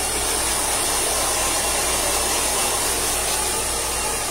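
Handheld hair dryer running steadily, blowing air through short hair; a constant rush of air that holds the same level throughout.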